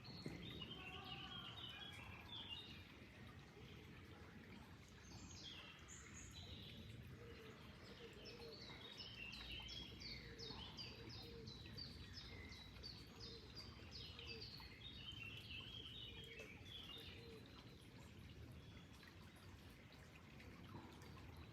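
Faint songbirds chirping over a low, steady rush of flowing water. One bird gives a quick run of short falling notes through the middle, with scattered chirps around it.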